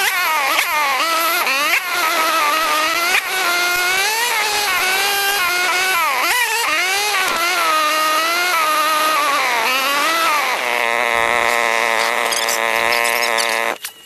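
Sped-up ATV engine, its pitch swinging up and down over and over as the rider works the throttle on the trail. Near the end it holds one steady pitch for about three seconds, then cuts off suddenly.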